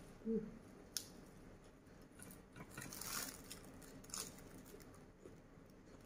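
Faint eating sounds: a brief hum at the start, then fresh lettuce leaves torn by hand and chewed, a soft crunching rustle in the middle with a couple of light clicks.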